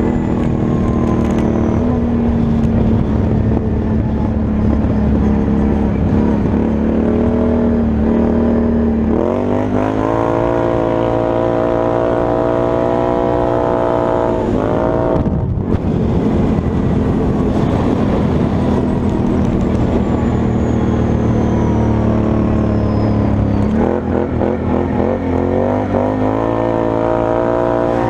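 Can-Am Outlander 1000 XT-P ATV's V-twin engine running under way, steady for the first several seconds, then climbing in pitch as it accelerates about nine seconds in. The throttle comes off briefly near the middle before the engine picks up again, with another climb about twenty-four seconds in.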